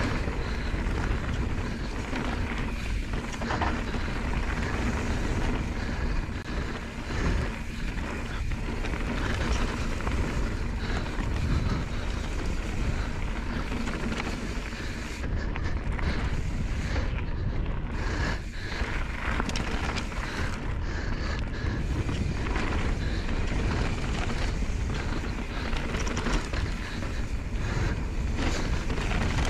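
Wind buffeting the microphone of a helmet-mounted camera on a fast mountain-bike descent, over the constant rumble and rattle of knobby tyres rolling over loose gravel.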